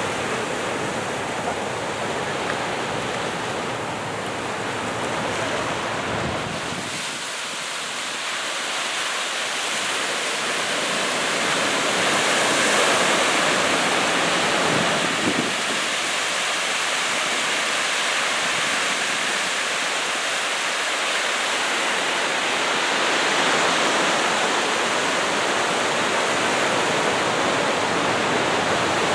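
Ocean surf: small knee-high waves breaking and washing up the beach in a steady rush that slowly swells and eases.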